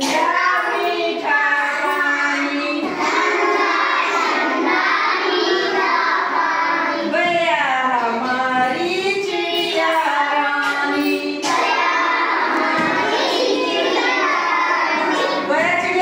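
A class of young children singing a Hindi children's poem together in a sing-song chant, without break.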